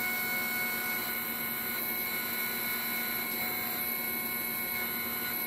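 NEMA 23 stepper motors on a bench test rig, driven by stepper drivers under LinuxCNC, running with a steady whine made of several pitches.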